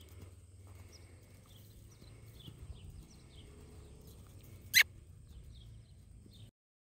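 Horse cantering on a lunge line in a sand arena: soft hoofbeats in the sand under a low rumble of wind on the microphone, with one sharp loud click about five seconds in. The sound cuts off suddenly near the end.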